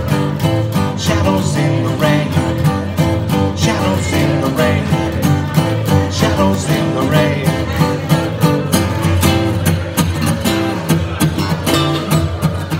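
Acoustic guitar strummed in a steady rhythm, full chords ringing on every stroke.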